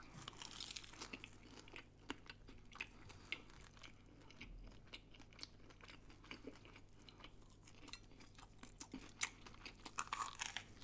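Chewing and crunching of a breaded schnitzel sandwich with cheese, heard close up as many small crisp crunches, with a louder fresh bite about ten seconds in.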